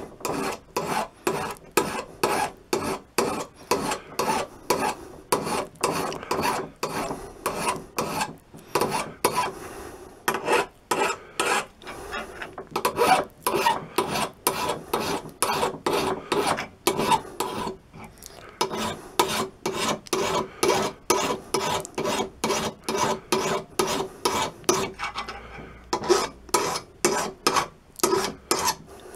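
A fine flat hand file rasping back and forth across the steel tip of a flat-blade screwdriver clamped in a vise, knocking off the rounded, worn end to square the blade again. The strokes are steady and rhythmic, about two to three a second, with a short break about 18 seconds in.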